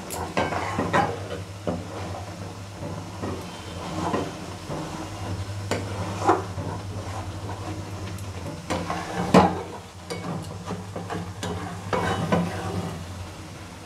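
Steel spatula stirring and scraping bubbling milk cream in an aluminium kadai as it cooks down into ghee, with a low sizzle underneath. Irregular scrapes and clinks against the pan, the loudest about nine seconds in, over a steady low hum.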